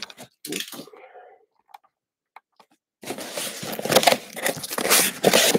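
Packaging being handled: a brief rustle of the cardboard box, a short lull with a few faint ticks, then about three seconds in a dense, irregular crinkling and rustling of plastic wrapping as a replica baseball helmet is unwrapped.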